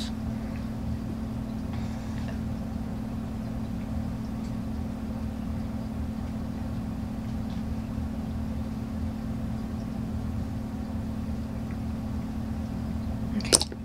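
A steady low hum with a faint background hiss, broken by one sharp click near the end.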